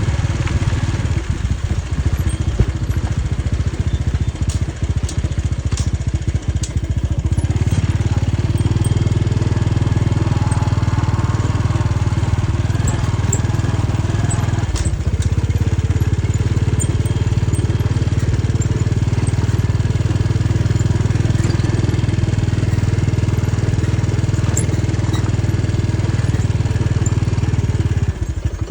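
A small engine running steadily, with a rough pulsing note at first that settles into an even, louder hum about seven seconds in.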